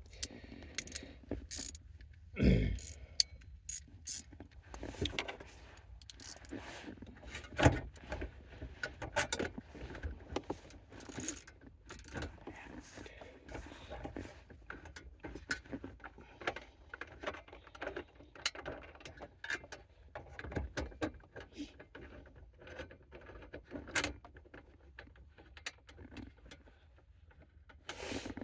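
Irregular clicks, clinks and knocks of hand tools and small parts being handled while reassembling around a car's ignition, with a louder knock a couple of seconds in and another about eight seconds in.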